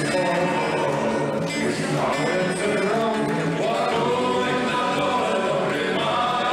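A group of men singing together, with acoustic guitar accompaniment.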